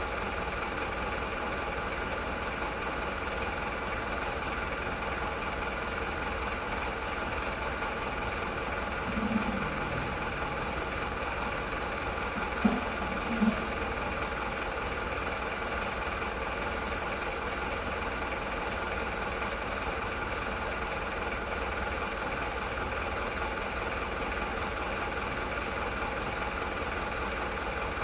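Truck engine idling steadily, with a few short, louder sounds over it: one about nine seconds in, and two more close together a few seconds later.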